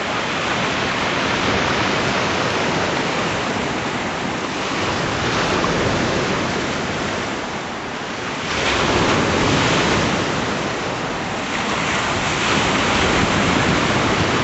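Sea waves washing onto a rocky shore, a steady rush that surges louder every few seconds, with some wind on the microphone.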